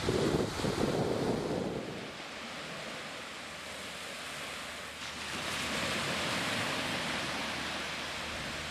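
Small surf washing onto a sandy beach as a steady hiss that swells about five seconds in, with wind gusting on the microphone during the first two seconds.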